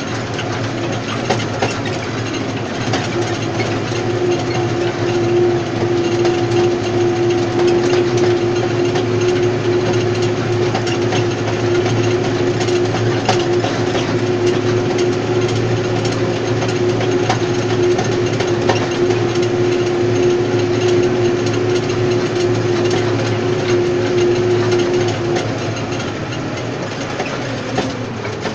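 Tractor engine running steadily under load while pulling a Kromexim tine stubble cultivator through the soil, with constant clicking and rattling from the cultivator working. A steady whine runs through most of it and fades out near the end.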